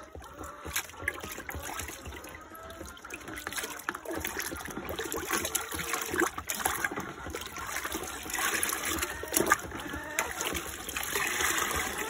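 Water sloshing and splashing in a plastic basin as a plastic scoop stirs and ladles it, with occasional light knocks. Near the end a scoopful is poured back in with a trickling splash.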